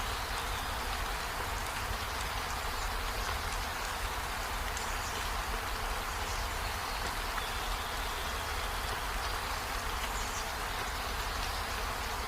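Steady rain falling on tree leaves and a window: an even hiss of fine, dense drop patter with a low rumble underneath.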